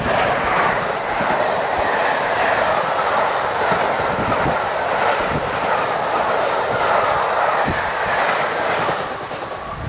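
Peppercorn A1 Pacific steam locomotive 60163 Tornado and its train of coaches passing close at speed: a loud rush of wheels and air with occasional sharp clicks from the wheels on the rails. It dies down near the end as the last coach goes by.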